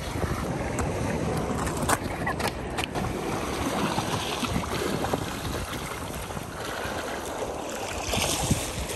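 Wind buffeting the microphone over seawater washing and lapping against a rock ledge. Near the end there is a brief, brighter rush of water.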